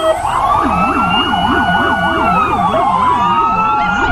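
Several police car sirens sounding at once. A fast yelp warbles up and down about three times a second, over a slower wail that rises, holds, falls about two seconds in, and starts rising again near the end.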